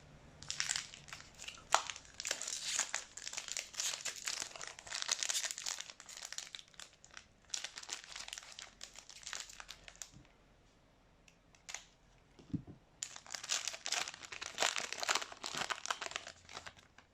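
Crinkling and tearing of a trading card pack's foil wrapper as it is handled and opened: two spells of dense crinkling with a pause of a few seconds in between.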